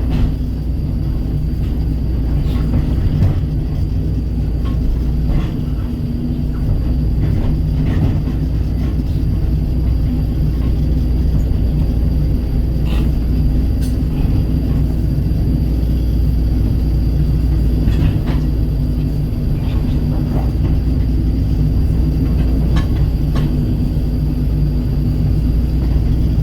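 Kobelco crawler excavator's diesel engine running steadily as it works, with occasional short sharp knocks scattered through.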